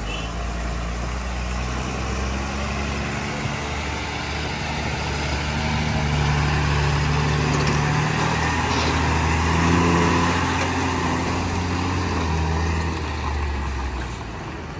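Truck engine running steadily, getting louder around the middle and easing off near the end.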